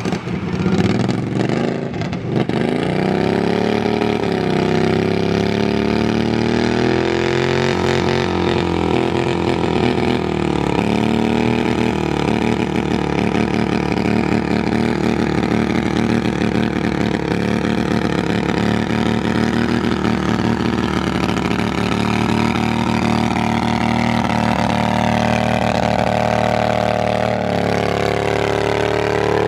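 Garden tractor engine running hard under load while pulling a weight-transfer sled. The revs climb about two seconds in, hold high and fairly steady, then sag briefly near the end.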